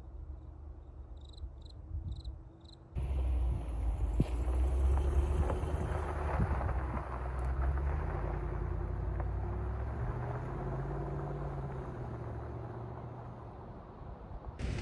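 Truck driving, a steady low engine and road rumble that starts abruptly about three seconds in. Before it, a quiet background with four short clicks.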